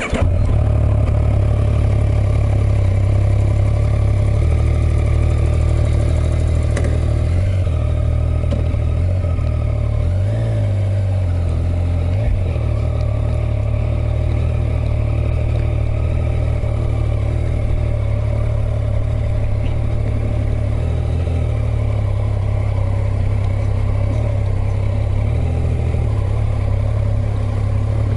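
Motorcycle engine running steadily under way, a constant low drone that shifts slightly about ten to twelve seconds in.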